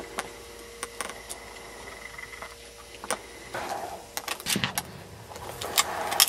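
Scattered small clicks and rustles of handling noise, with a faint steady hum that stops about three seconds in; the clicking and rustling gets denser and louder near the end. No shots are fired.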